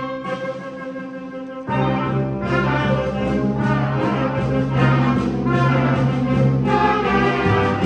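Student orchestra playing, the brass holding sustained chords; the full ensemble comes in louder a little under two seconds in.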